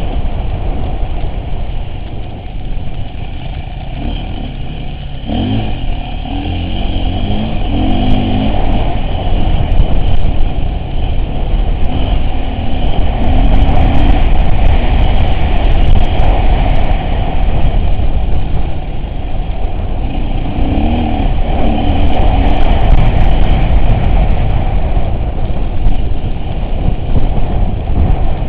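Off-road vehicle's engine running under changing load, its note rising and falling now and then and growing louder after the first several seconds, with scattered sharp knocks and rattles.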